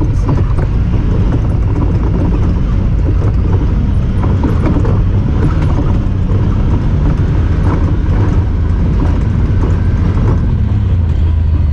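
Honda Talon 1000R side-by-side's parallel-twin engine running steadily while driving, with a constant light rattle of clicks over it.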